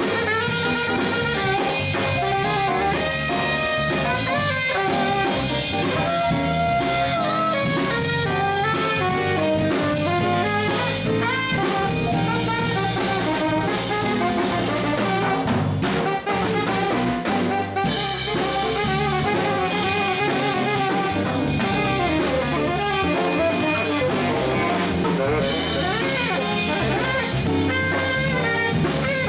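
Live jazz quartet of tenor saxophone, piano, electric bass and drum kit playing a Latin jazz rhumba.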